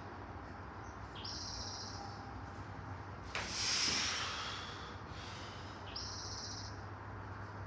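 A lifter's forceful breathing during barbell front squats: three sharp breaths, the loudest about three and a half seconds in, over a steady low hum.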